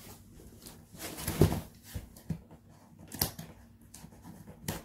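Cardboard shipping box being handled and its packing tape cut with scissors: a stretch of scraping and rustling about a second in, then two sharp clicks a second and a half apart.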